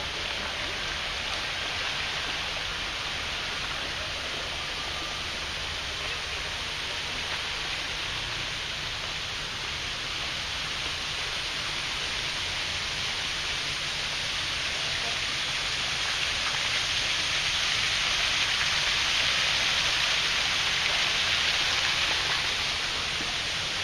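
Steady rushing hiss of running water, like a fountain or water feature, growing louder past the middle and easing near the end.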